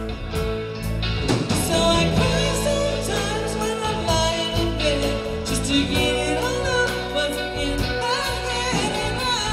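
A band playing with a singer: a sung vocal line over drums and bass.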